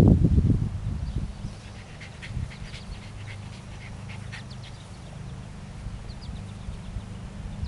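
Scottish Terrier rolling and rubbing its back on lawn grass: a loud scuffling rustle in the first second that dies down, then faint rustling with scattered light high clicks over a steady low hum.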